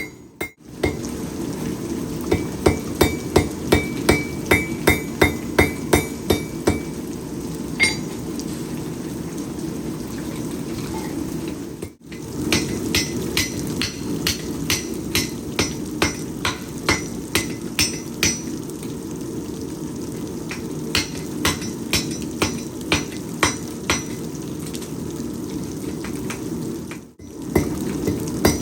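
Hand hammer striking hot steel on an anvil while forging a knife blade, in runs of about two blows a second, some blows leaving a ringing tone. A steady low rush runs underneath.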